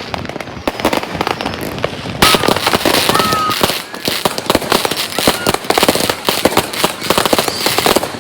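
Many fireworks and firecrackers going off at once in dense, rapid, overlapping cracks and bangs, with a few short whistles; the barrage gets louder about two seconds in.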